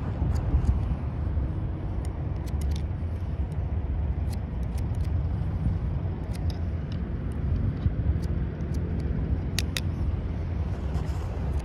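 Barber's shears snipping hair over a comb: short, sharp snips at an uneven pace, the two loudest close together near the end. Under them runs a steady low rumble.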